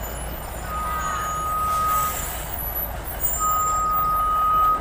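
A truck's electronic warning beeper sounds two long, steady single-pitch beeps, each about a second and a half, over the low rumble of a truck engine.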